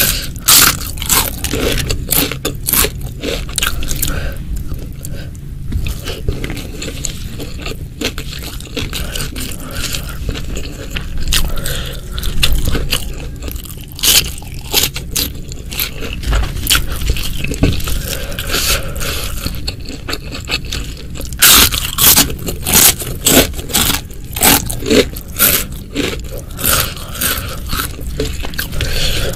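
Close-miked eating: crunchy bites and chewing with dense crackling clicks, busiest in the second half.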